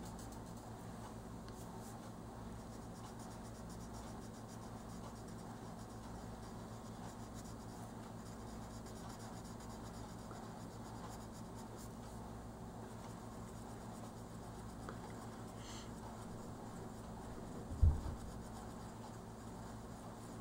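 Colored pencil shading on paper: faint, continuous scratchy strokes over a steady low electrical hum. One dull low bump comes near the end.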